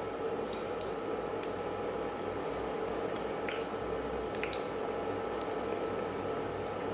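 Masala-coated chicken pakoda pieces sizzling in hot deep-frying oil in an aluminium kadai as they are dropped in one by one, with scattered small pops and crackles over a steady sizzle.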